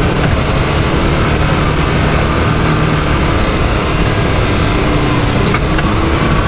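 Can-Am Maverick X3 side-by-side's three-cylinder engine running at a fairly steady note while driving along a trail, under a steady rushing noise.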